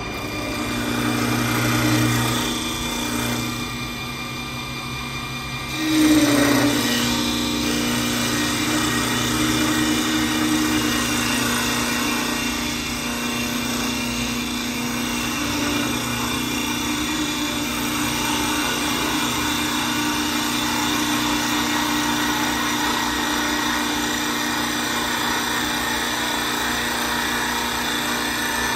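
CNC wood lathe turning a wooden spindle blank: a steady motor whine under the hiss of the cutter shaving the spinning wood. About six seconds in it gets louder and its pitch dips briefly, then it runs on steadily.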